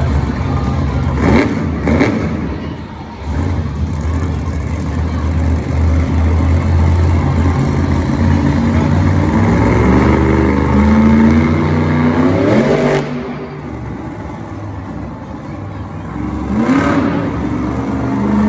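A monster truck's supercharged V8 engine revving hard, with rising surges of throttle about a second in and again over several seconds before it drops off suddenly about two-thirds through. It revs up once more near the end as the truck pops onto its front wheels.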